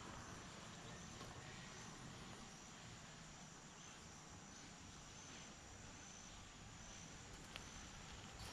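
Near silence: faint outdoor ambience with a thin, steady high chirring of insects such as crickets.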